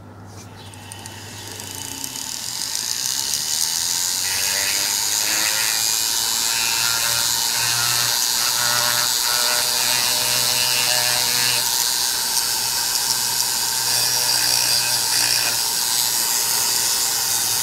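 High-speed rotary grinder running a small abrasive cartridge roll against the edges of a two-stroke cylinder's ports, chamfering off the sharp edges. It makes a steady, gritty hiss over a low hum, growing louder over the first few seconds and then holding steady.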